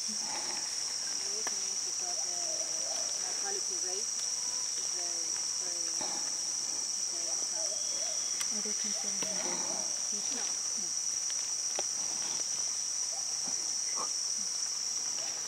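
Rainforest insect chorus: a steady, unbroken high-pitched drone of crickets or cicadas, with faint short calls underneath.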